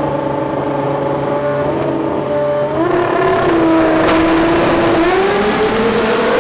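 Two rear-wheel-drive import drag cars on slicks holding their engines at steady revs on the start line. About three seconds in, the engines get louder and rise in pitch, with a thin high whine climbing above them. Near the end the pitch climbs again as the cars launch.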